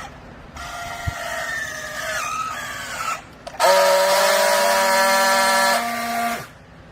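A loud, high-pitched whine, heard twice: first a wavering tone that sags slightly in pitch for about two and a half seconds, then a louder, steady tone of about three seconds that cuts off suddenly.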